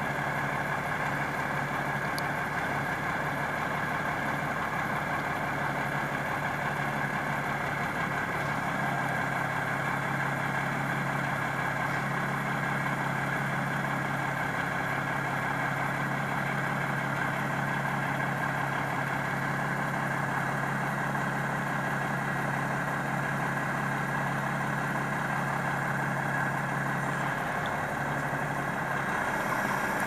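Crane truck's engine running steadily while the crane works, its tone shifting about nine seconds in and settling back shortly before the end.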